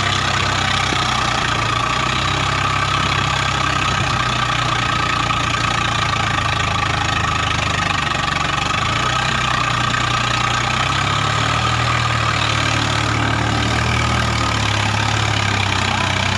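Swaraj 855 FE tractor's three-cylinder diesel engine running under load as it hauls a loaded trolley up a soft dirt slope. The engine note is steady, shifting slightly about nine and eleven seconds in.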